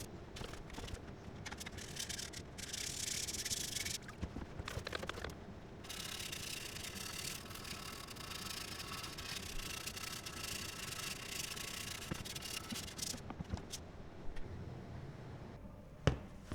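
Scrubbing and rubbing, a brush worked back and forth over a surface, in stretches with short breaks, with one sharp click near the end.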